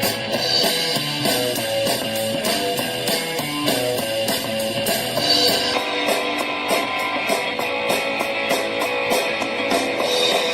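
Guitar-led rock-style music with drums, played back through a small portable Bluetooth speaker and picked up by a microphone, with almost no deep bass. The upper part of the sound changes about halfway through.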